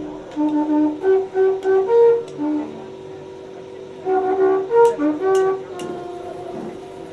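Background music: a wind-instrument melody in two short phrases of quick notes over a steady held tone.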